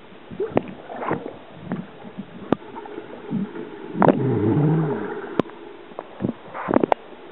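Front-crawl swimming heard underwater: muffled, bubbly splashing from the kicks and arm strokes, with a few sharp clicks. It is loudest about four seconds in, when the swimmer passes close.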